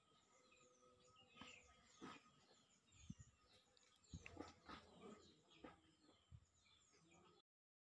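Faint chirping of small birds, with a few soft knocks and clicks of a metal ladle against the silicone moulds and the aluminium steamer as batter is ladled in. The sound cuts off abruptly near the end.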